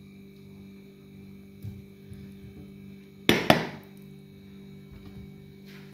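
A steel spoon knocks twice in quick succession against a metal dinner plate about halfway through, over a steady faint hum.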